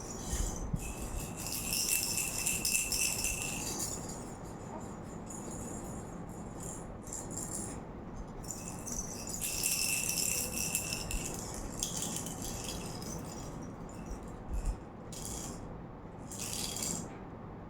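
Baby's rattle toy shaken in several bursts, the longest about three seconds, with a faint bell-like ring inside the shaking.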